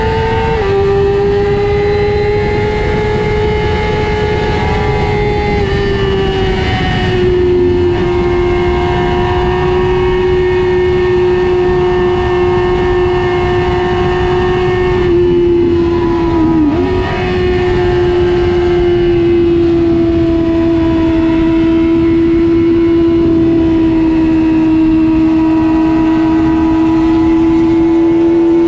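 Racing motorcycle engine held at high revs at full speed, a steady high-pitched note that drifts slowly lower, with a brief dip about two-thirds of the way through, over heavy wind rush.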